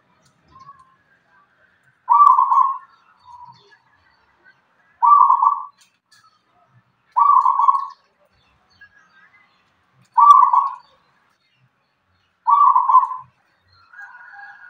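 Caged zebra dove (perkutut) cooing: five loud coos, each under a second long, spaced two to three seconds apart, with a few soft notes in between. The bird is sold as a local perkutut with a big voice.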